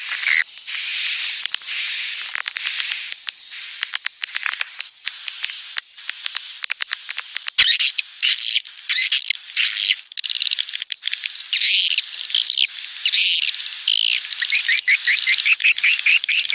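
Edible-nest swiftlet calls: a dense, unbroken twittering of high, buzzy chirps. About halfway through, a click marks an abrupt change to faster, more varied chirps, and it ends in a quick run of short falling chirps. This is a swiftlet-farm lure recording of the mating and breeding call type.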